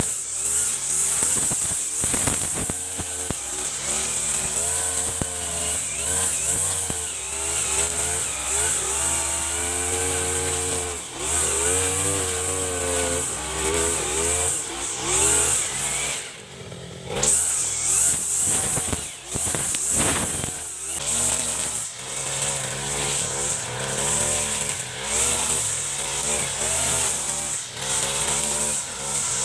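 Backpack brush cutter's small petrol engine running at high revs as its spinning head cuts grass, the revs rising and falling as it swings through the growth. The engine eases off briefly about halfway through, then revs back up.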